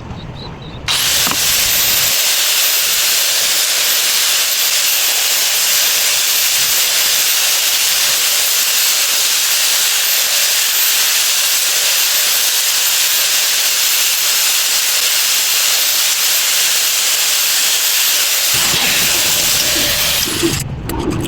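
A loud, steady hiss that starts about a second in, runs unbroken for nearly twenty seconds and cuts off suddenly near the end, with a faint thin high whine over it.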